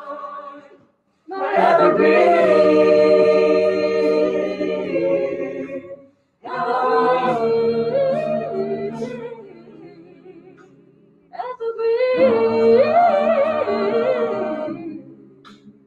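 A cappella group of men and women singing in harmony with no instruments: three held phrases with short breaks between them, the second fading away before the last one comes in, which dies away near the end.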